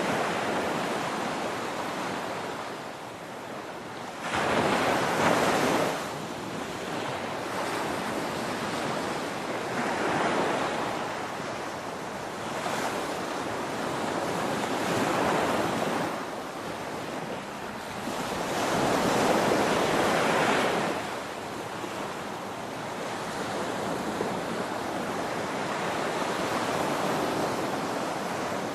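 Ocean waves breaking on a beach in a steady rush of surf, with a wave cresting and crashing louder every few seconds, the loudest about five seconds in and again near two-thirds through.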